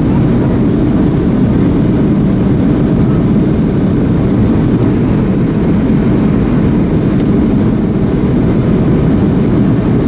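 Steady in-flight cabin noise of a Boeing 737-300: its CFM56 jet engines and rushing air heard from inside the passenger cabin, a constant low drone.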